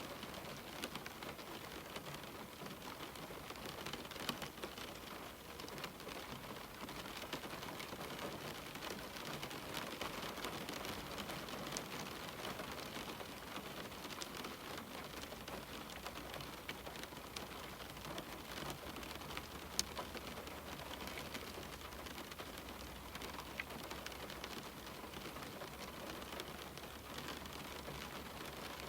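Steady rain pattering on a window pane, a dense hiss of drops with many small taps and one sharper drop tick about twenty seconds in.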